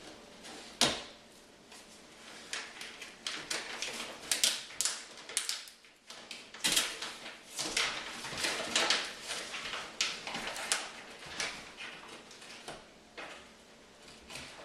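Cardboard packaging being handled: irregular rustling, scraping and knocks, with sharp knocks about a second in and again midway.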